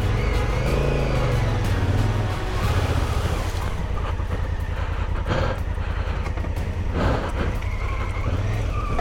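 Honda Africa Twin's parallel-twin engine running at low speed off-road, rising and falling in pitch with the throttle about a second in, with a few sharp knocks in the second half.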